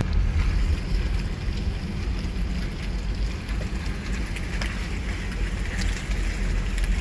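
Steady low rumble of a car driving on a snowy highway, heard inside the cabin, with a hiss from the tyres and road over it.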